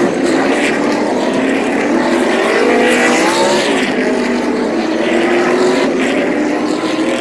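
A pack of NASCAR Cup Series stock cars' V8 engines going by at race speed, several engine notes overlapping, rising in pitch about three seconds in as the cars accelerate past.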